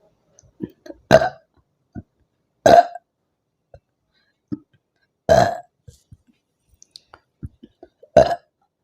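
A woman burping loudly four times, a few seconds apart, from drinking carbonated lemon-lime soda (Limca). Short, quieter sounds come between the burps.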